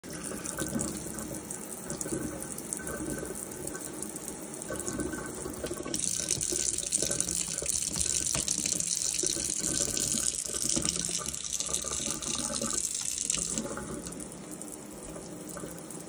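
Kitchen pull-down faucet running into a stainless steel sink, splashing over a Moluccan cockatoo. About six seconds in the hiss turns brighter and louder as the faucet runs as a single stream instead of a spray, and it drops back again near the end.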